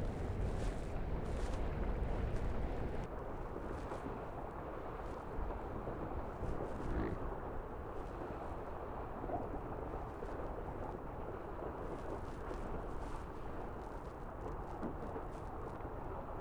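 Wind rushing over the microphone and water rushing past the hulls of a Tornado catamaran sailing at speed. There is a heavier low buffeting for the first few seconds, then a steadier rushing noise.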